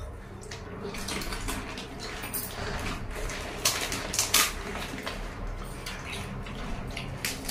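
Pani puri being prepared by hand: crisp puri shells cracked open and dipped into pani in steel bowls, with short cracks, light splashing of liquid and clinks of the metal bowls, busiest in the middle.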